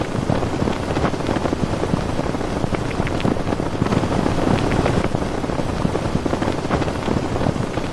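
Strong wind gusting and buffeting the microphone, a loud, unbroken rushing rumble.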